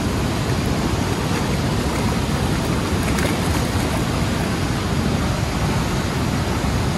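Steady, loud rush of whitewater churning over rocks in the tailwater below a river dam.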